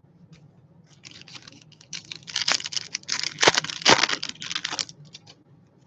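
Baseball card pack being torn open and its cards handled: a fast run of crinkling, tearing and clicking, busiest from about two to five seconds in.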